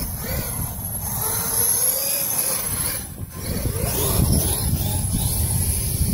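Brushless electric motor and drivetrain of a KM X2 RC truck running on 8S, whining up and down in pitch as the throttle is worked, over a low rumble. The sound drops briefly about three seconds in.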